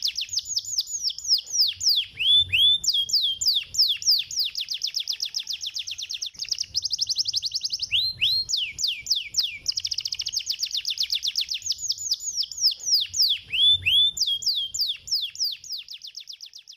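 Domestic canary singing: long, fast trills of rapidly repeated, down-sweeping notes, broken by slower sweeping phrases, fading out at the end. It is a stimulation song of the kind played to get quiet canaries to start singing.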